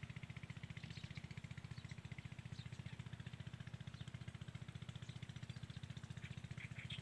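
An engine running steadily, giving a low, even throb of about ten beats a second, with faint high chirping over it.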